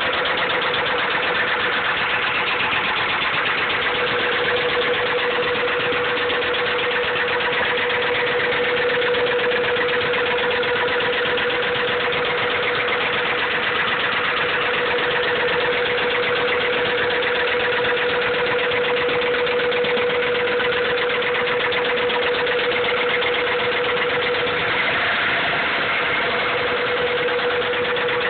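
Honda B16 1.6-litre DOHC VTEC four-cylinder engine running steadily with a fast, even knocking, the sign of a worn connecting-rod bearing (rod knock).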